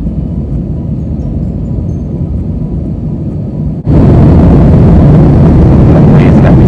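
Steady low rumble of engine and airflow noise inside the cabin of a Thai Smile Airbus A320 in flight. About four seconds in, the noise jumps suddenly to a louder, fuller level where the footage cuts.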